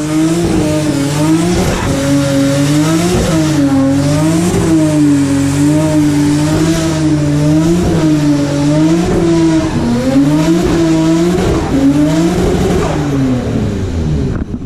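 A car doing a burnout: the engine is held at high revs, its pitch swinging up and down about every second and a half, over the hiss of spinning, squealing tyres.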